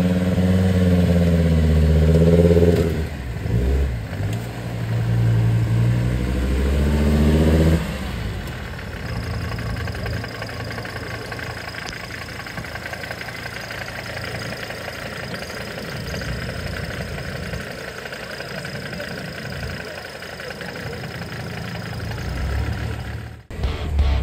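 Off-road 4x4's engine working hard under throttle, its pitch rising and falling for about eight seconds, then dropping away to a quieter, steady engine-and-outdoor noise. It cuts off suddenly near the end.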